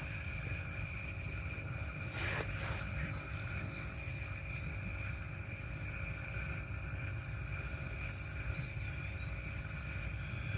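Insects, crickets or katydids, trilling steadily on two unbroken high pitches, over a low steady rumble.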